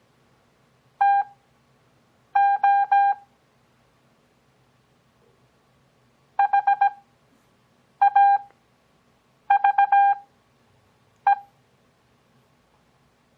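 Morse code practice tone: a single steady-pitched beep keyed into about six characters, each a quick run of dots and dashes, with gaps of one to three seconds between them. The characters are sent at 17 words per minute with Farnsworth spacing that slows the overall rate to 6 words per minute.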